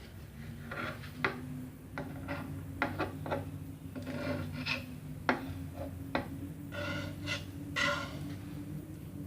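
Knife cutting through a thick sweet martabak pancake, the blade scraping and knocking on the surface beneath in irregular strokes, a few of them ringing briefly. A steady low hum runs underneath.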